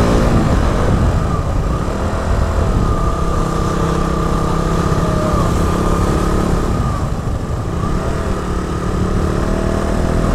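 Motorcycle engine running under way, with a dense rumble of wind and road noise. The engine note drops about two-thirds of the way through, then climbs again as the bike slows and picks up. The engine has been cutting out repeatedly, but here it keeps running, which the rider takes as a sign it is going properly again.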